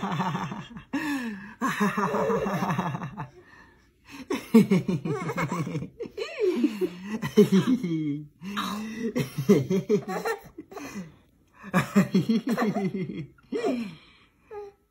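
Laughter in a series of short bursts with brief pauses, with gliding, playful voice sounds and no words.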